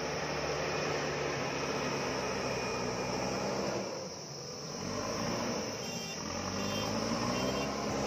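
JCB backhoe loader's diesel engine running under load. The level dips briefly about halfway through, then the engine pitch rises as it revs up while the machine moves with a loaded front bucket.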